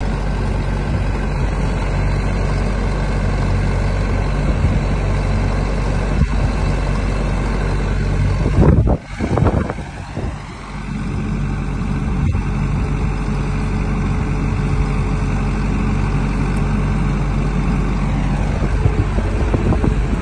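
Diesel engine of a Nemek 510TS tracked well-drilling rig running steadily while the hydraulic drill mast is raised. A steady whine joins in after about eleven seconds. About nine seconds in there is a brief loud rush, and the sound dips for a moment.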